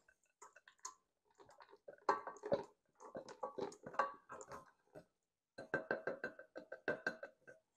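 Flour and chopped chocolate chunks being tipped and scraped into a mixing bowl: irregular light taps and clinks of the chunks and utensil against the bowl, some with a short ringing tone.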